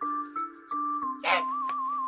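Light background music with a whistle-like melody over a steady low note. A short rising-and-falling sound cuts in a little past halfway.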